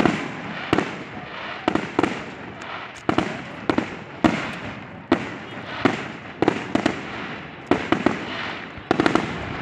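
Aerial fireworks shells bursting in quick succession, a sharp bang roughly every second or less, with crackling in between.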